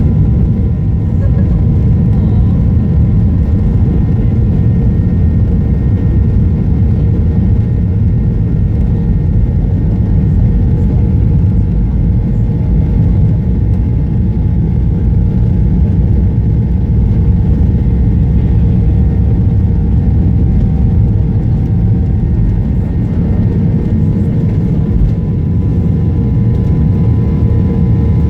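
Jet airliner's engines running at high thrust during takeoff and climb, heard from inside the passenger cabin as a steady, loud, deep rush with a faint constant hum over it.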